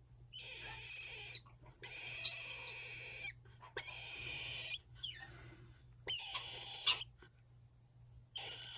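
Unweaned medium cockatoo chick giving a series of harsh, raspy begging calls, each up to about a second and a half long with short pauses between them.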